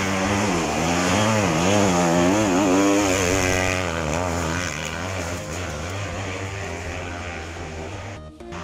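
Enduro dirt bike engine revving hard up and down as the rider climbs a steep slope, fading as the bike moves away. There is a brief dropout near the end.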